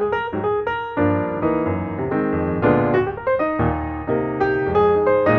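Background piano music: a flowing run of struck piano notes and chords.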